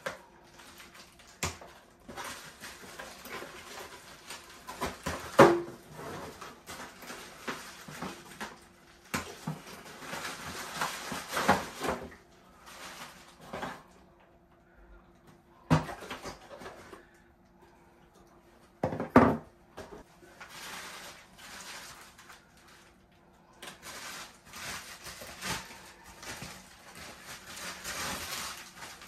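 Cardboard packaging insert and plastic wrapping being handled: plastic bags and bubble wrap rustling and crinkling in long stretches, with a few sharp knocks of handled cardboard, the loudest about five seconds in and near twenty seconds.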